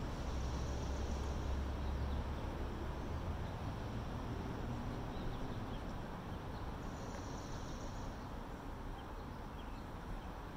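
Steady outdoor background noise, with a stronger low rumble in the first three seconds.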